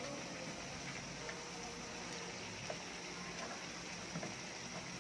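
Corn pieces simmering in a pot of sauce: a steady bubbling hiss with a few faint pops.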